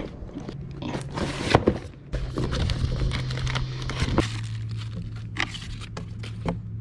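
A cardboard box being opened and handled: flaps scraping and brown packing paper crinkling as it is pulled back, in irregular rustles with a sharper scrape about one and a half seconds in. A low steady hum runs underneath.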